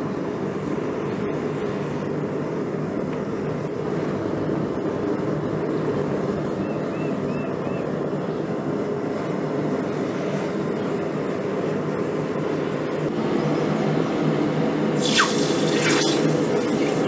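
Forge burner running steadily while copper pieces are heated for annealing. About fifteen seconds in, the hot copper is quenched in a bucket of water with two short, sharp sizzling hisses.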